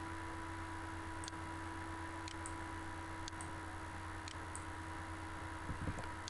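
A few faint computer mouse clicks, some in quick pairs, over a steady low electrical hum and hiss.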